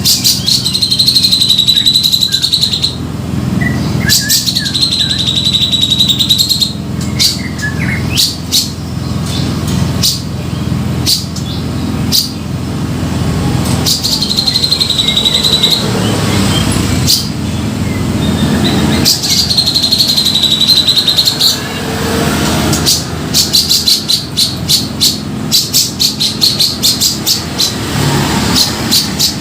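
Grey-cheeked bulbul (cucak jenggot) calling in a lure recording: four trilled phrases, each about two and a half seconds long, followed by a run of quick repeated notes near the end, over a steady low hum.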